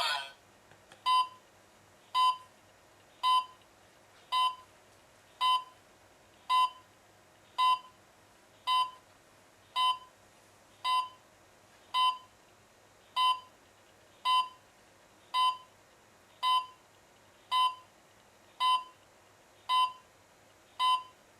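An alarm system's control panel giving short, identical electronic beeps at a steady pace of about one a second.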